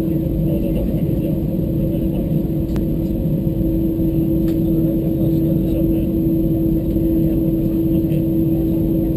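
Cabin noise inside an Airbus A320-214 as it taxis: a steady low rumble from its CFM56 engines with a constant hum, holding level without any rise in power.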